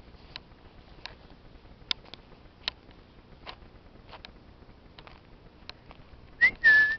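Faint scattered ticks and rustles in tall dry grass, then near the end a short whistle followed by a louder, steady whistle, a person whistling to call a dog.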